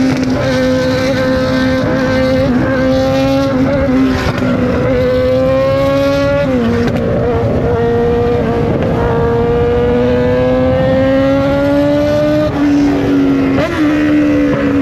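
Yamaha XJ6's inline-four engine and exhaust, heard from the rider's seat while riding. It is one steady engine note that climbs slowly in pitch, drops suddenly about six and a half seconds in, climbs slowly again, and dips twice near the end.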